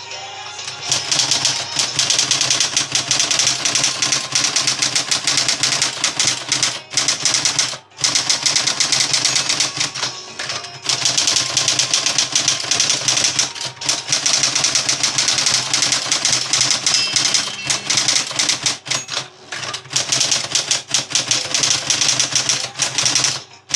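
An Olivetti Praxis 48 electric typewriter, freshly overhauled, is typed on fast. Dense runs of key strikes are broken by short pauses every few seconds, over a steady low hum.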